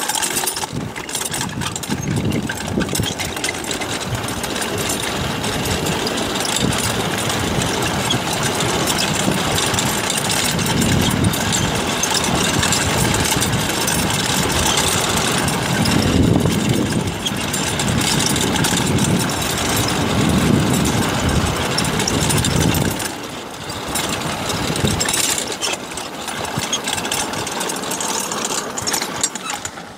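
Pedal go-kart coasting fast down a steep dirt and gravel track: a loud, continuous rattle and rumble of its hard plastic wheels and frame shaking over the rough surface, easing for a moment about twenty-three seconds in.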